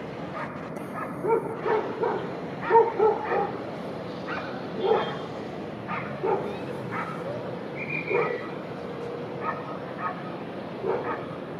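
A dog barking in short, irregular barks, a dozen or so, over steady background noise.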